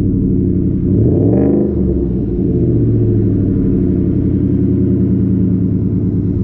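2018 Ford F-150's 5.0-litre V8 idling through a Roush cat-back exhaust, with one short rev about a second in that rises and drops back to idle.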